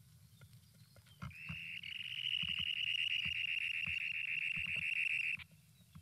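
Recording of a dunlin's breeding-ground song: one long, rapid high trill that starts about a second in, holds steady, and cuts off after about four seconds.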